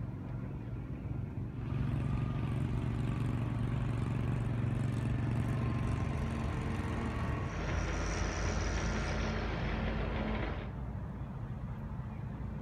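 Steady mechanical running noise with a low hum, like engines or generators running. A louder rushing layer cuts in about a second and a half in, turns brighter and higher around the middle, and stops suddenly about two seconds before the end.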